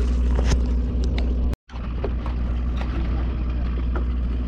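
Steady low drone of a sportfishing boat's engine, with scattered sharp clicks and knocks over the first second and a half. The sound cuts out completely for a moment about a second and a half in, then the drone carries on.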